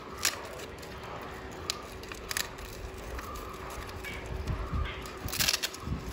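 Handling noise from a Velcro strap and brake cable being wrapped around a bicycle's seat tube: a few scattered clicks, then a short scratchy rasp about five seconds in.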